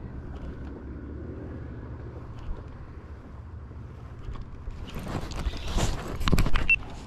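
A steady low rumble of wind buffeting the microphone on an open boat. From about five seconds in come a couple of seconds of rustling and knocking close to the microphone.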